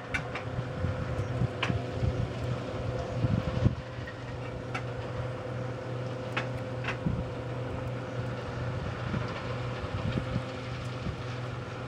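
Self-propelled grape harvester's engine running steadily in the distance as it works along a vineyard row: a constant low hum with a fainter steady tone above it. A few faint ticks come through now and then.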